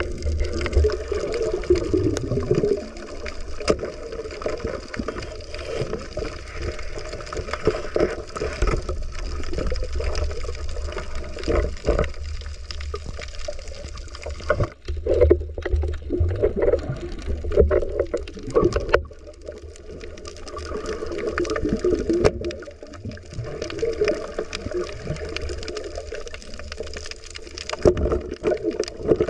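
Muffled underwater water noise picked up by a submerged camera: gurgling and sloshing with a low rumble, broken by scattered small clicks and knocks.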